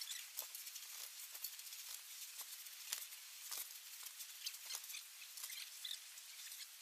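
Faint, irregular crunching and scraping of snow shovels cutting into deep snow on a roof, a scattered click every half second or so over a steady hiss.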